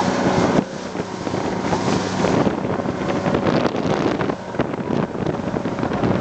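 Motorboat engine running steadily, with heavy wind noise on the microphone. The engine hum fades under the wind and water noise about half a second in and comes back clearly near the end.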